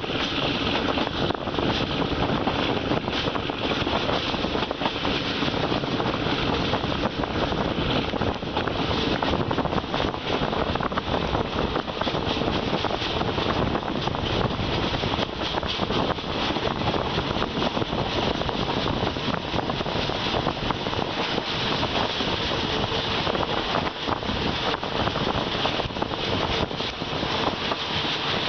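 A moving passenger train heard from an open carriage window: the steady rush of wind mixed with the running noise of the wheels on the track.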